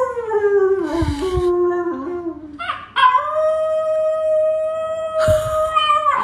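Small curly-coated dog howling twice: a first howl that falls in pitch over about two seconds, then after a short break a longer, steadier howl.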